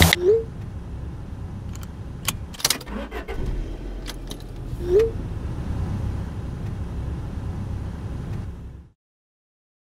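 A car's low steady engine and road rumble, with a few sharp clicks and two short rising phone message-alert chirps, one near the start and one about five seconds in. The sound cuts off suddenly near the end.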